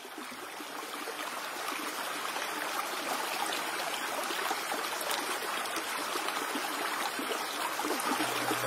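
Shallow water running and splashing over rocks and weed, a steady rushing wash that fades in at the start. Low, sustained music notes come in near the end.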